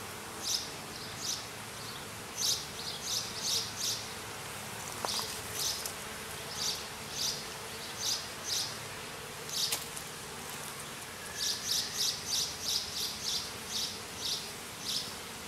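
Honey bees buzzing steadily at an open hive, with short high-pitched chirps repeating over the hum, more of them close together near the end.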